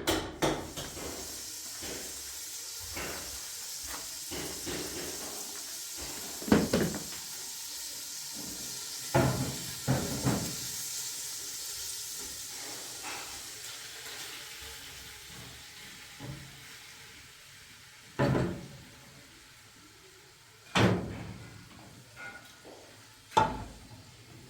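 A steady hiss that slowly fades, with a few separate knocks and clatters, several of them close together about nine and ten seconds in and three more near the end.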